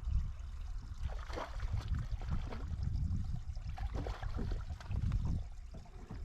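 Water splashing and trickling in irregular bursts over a low rumble.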